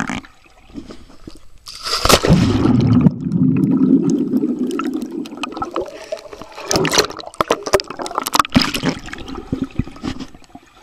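Swimming-pool water splashing and gurgling around a camera as it dips in and out of the water. About two seconds in comes a loud splash, then a few seconds of muffled underwater rumbling, then scattered splashes.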